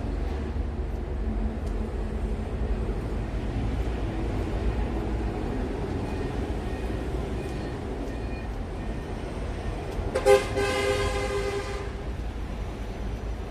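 A single loud, horn-like toot with several even overtones sounds about ten seconds in and lasts almost two seconds, over a steady low background rumble.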